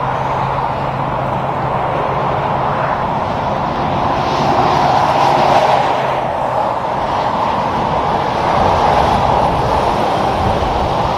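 Highway traffic with a Freightliner Cascadia semi-truck pulling a tanker trailer driving past: steady diesel engine and tyre noise that grows loudest about halfway through and swells again near the end.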